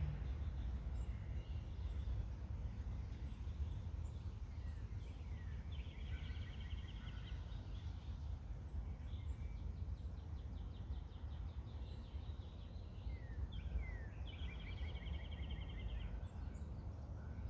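A songbird singing a fast trilled phrase twice, about eight seconds apart, each opened by a few short sliding notes, over a steady low rumble of outdoor background noise.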